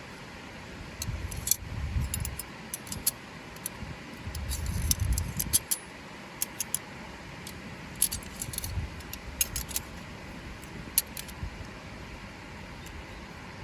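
Small metal objects jangling and clinking in short irregular clusters, with soft low knocks of handling, over a steady rushing background from the river.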